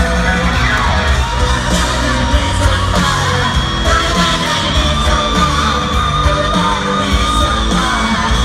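Live rock band playing through a stadium PA, with a male lead vocal sung over the band and piano.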